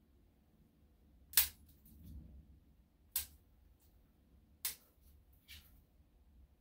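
Dog nail clippers snipping through a dog's toenails: three sharp clicks about a second and a half apart, then a fainter one near the end.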